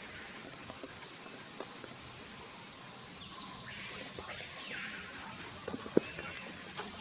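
Steady high-pitched insect drone, like crickets or cicadas, with faint bird calls in the middle and a few sharp clicks, the loudest about six seconds in.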